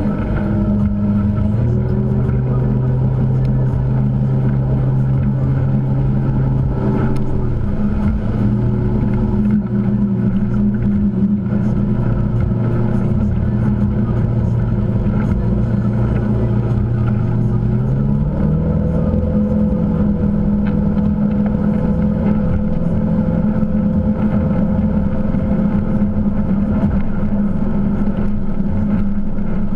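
Motorboat engine running steadily under way over a constant rush of noise. Its pitch steps up about two seconds in, eases slightly near eight seconds, and rises again about eighteen seconds in as the throttle changes.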